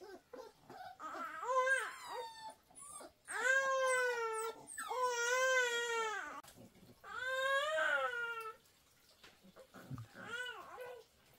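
A baby crying: a series of about five long wailing cries with short breaths between them, the longest about four and five seconds in.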